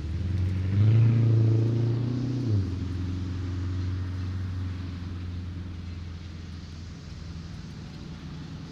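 City street traffic: a motor vehicle's engine passes close, loudest a second or two in, then drops away to a steady low traffic rumble.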